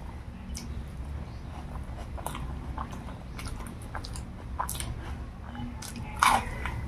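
Close-up chewing and mouth sounds from eating a rice-and-curry meal: irregular small clicks and smacks with some light crunching, and one louder smack about six seconds in.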